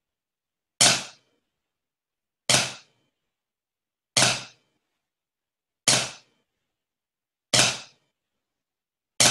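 Drumsticks striking a practice pad: single sharp hits, evenly spaced about every second and a half to two seconds, six in all, playing the snare drum part.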